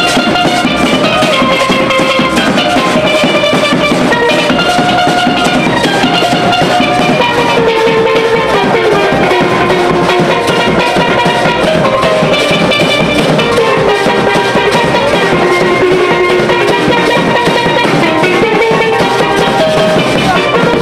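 A steel band playing: steel pans carrying a melody of struck, ringing notes over a steady percussion beat.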